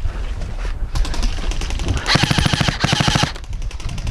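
Airsoft electric rifle firing on full auto: scattered shots, then two fast bursts about two seconds in, the first lasting under a second and the second about half a second.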